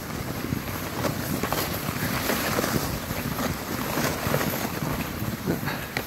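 Wind noise buffeting the microphone as the hiker runs down a packed snow trail, with crunching footfalls in the snow coming roughly twice a second.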